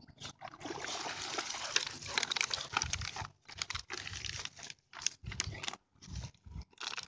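A dog splashing as it wades out of shallow water, then crinkling and chewing a crumpled white wrapper in its mouth in short bursts.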